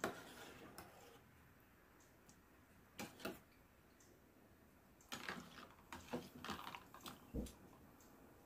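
Faint water sloshing and knocks as a metal slotted skimmer moves cut potato sticks about in a plastic bowl of cold water, mostly in the second half with one low thump near the end. Two sharp knocks come about three seconds in.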